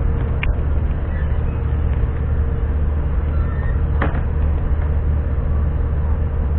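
Steady low rumble of a moving vehicle, with a faint steady hum over it and a short sharp knock about four seconds in.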